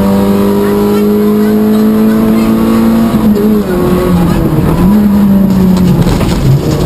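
Peugeot 106 XSi rally car engine heard from inside the cabin, pulling hard with its pitch climbing steadily. About three seconds in, the revs drop and waver, then hold steady again, with a brief dip near the end.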